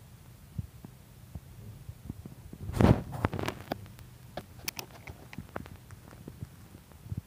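Handling noise from a handheld recording: a low steady hum with scattered small clicks and knocks, and one louder bump about three seconds in.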